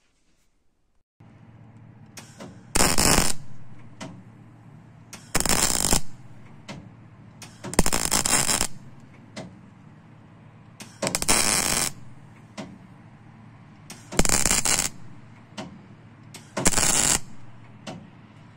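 MIG welder laying six short welds onto the worn brake expander shaft of a Tunturi Pappa moped, to build up the shaft's worn edge. Each weld is a crackling burst lasting under a second, with a steady low hum between them.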